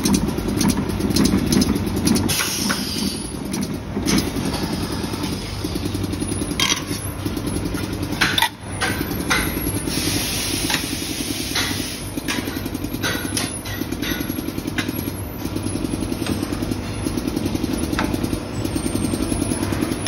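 PVC patch-making machinery running: a steady, rapidly pulsing mechanical drone with scattered clicks and clacks.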